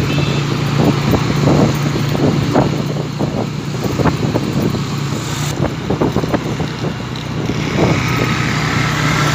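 Motorcycle engine running steadily at cruising speed, with wind buffeting the microphone.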